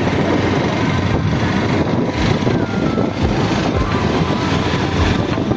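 Small commuter motorcycles riding along a street: engine running under steady road noise, with wind rushing over the microphone.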